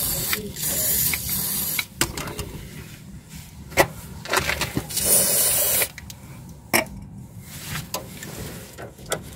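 Aerosol spray can hissing in a few bursts, the longest at the start and another about five seconds in, with a few sharp metallic knocks in between.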